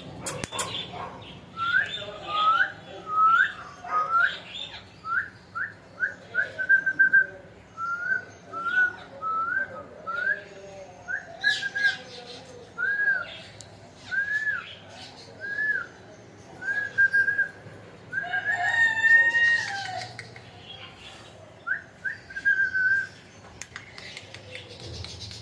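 Pet parrot whistling a long string of short, clear notes, each a quick rising or arching whistle, about one a second. A louder, harsher call comes about three-quarters of the way through.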